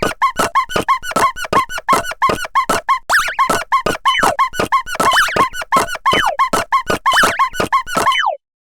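Squeaky, cartoonish warning chimes from an animated, made-up railroad crossing signal, repeating rapidly and evenly at about six a second with falling glides, then cutting off suddenly near the end.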